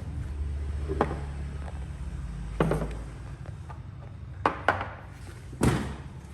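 A handful of sharp knocks and taps of hard objects being handled and set down: one about a second in, another near the middle, two quick ones close together, and the loudest near the end, over a steady low hum.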